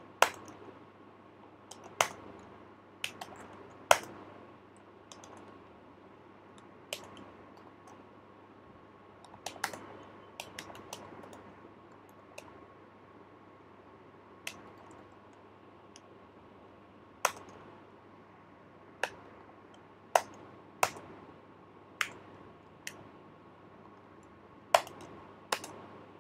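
Computer keyboard keystrokes from slow typing: single sharp key clicks at uneven intervals, sometimes a few seconds apart and sometimes in small clusters. A faint steady hum runs underneath.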